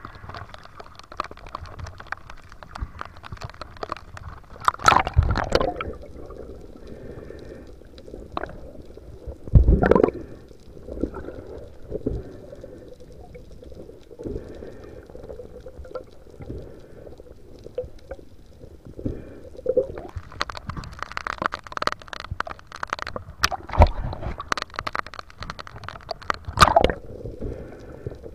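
Sea water sloshing and gurgling around a camera at and below the surface, muffled underwater, with several louder splashes: about five seconds in, about ten seconds in, and twice near the end.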